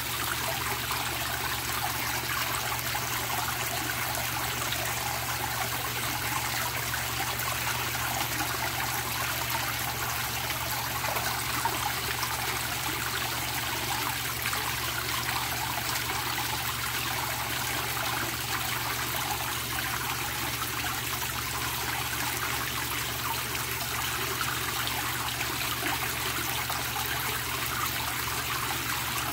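Water pouring from a pipe outlet into a koi pond, splashing steadily onto the surface.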